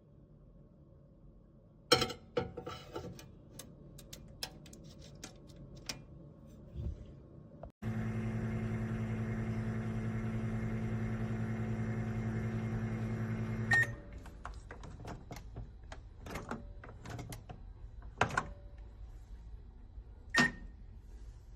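Black+Decker EM720CB7 compact microwave oven running for about six seconds with a steady electrical hum, then shutting off with a short beep. Button and door clicks come before and after, and another short beep sounds near the end.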